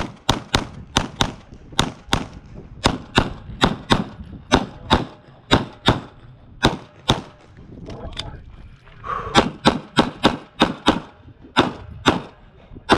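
Rapid pistol fire from a 9mm Glock 45 during a USPSA stage run: strings of shots, often in pairs a fraction of a second apart. A gap of about a second and a half comes past the middle, then the firing resumes.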